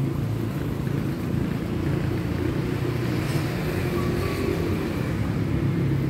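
Steady low rumble of outdoor street noise, like traffic running nearby, with no clear single event.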